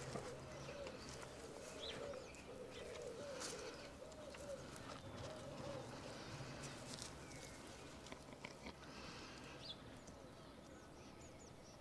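Alpacas humming: a soft, wavering hum in short rising-and-falling notes, one after another, that fades out about four to five seconds in.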